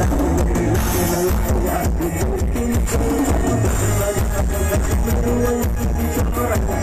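Loud dance music with heavy bass blaring from a Thai parade sound truck's (rot hae) speaker system, recorded live on a phone close to the truck.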